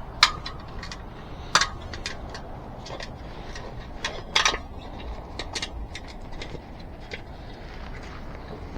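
Scattered clicks and knocks of a bicycle tire and wheel rim being handled, with three louder sharp knocks about a quarter second, a second and a half, and four and a half seconds in.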